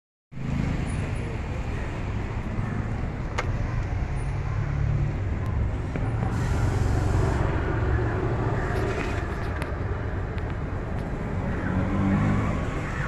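Steady low rumble of motor vehicles, engine and traffic noise, with one sharp click about three and a half seconds in.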